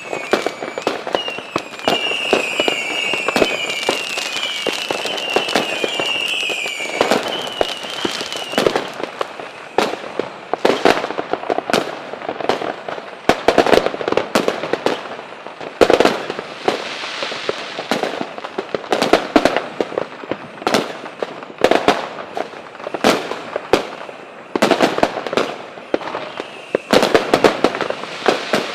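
Fireworks and firecrackers going off continuously: a dense run of sharp bangs and cracks, some much louder than the rest. A high warbling whistle repeats over the first eight seconds or so, then stops.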